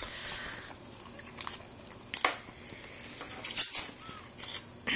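A plastic squeeze pouch of baby puree being handled: irregular crinkles, rustles and small taps against a plastic tray, with louder bursts of crackling about two seconds in and again near the four-second mark.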